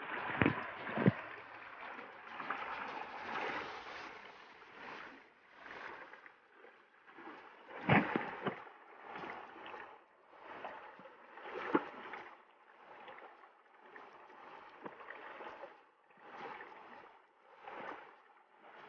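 Shallow rocky stream running over and around boulders, its rushing rising and falling in surges, with a few sharper splashes.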